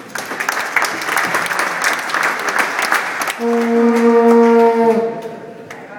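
Audience applauding, with one steady horn note blown over the clapping for about a second and a half just past the middle, the loudest sound; the applause dies away near the end.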